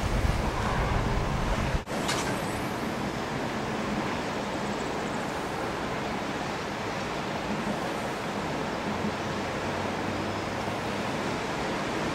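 Steady rushing outdoor noise of sea and distant traffic, with wind buffeting the microphone for the first two seconds; after a brief drop-out it carries on as a smoother, even hiss.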